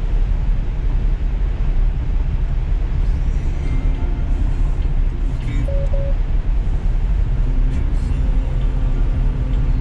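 Steady low road and tyre rumble inside a Tesla Model 3's cabin at highway speed on wet pavement. Music plays faintly over the car's speakers from about three seconds in, and a short double tone sounds about six seconds in.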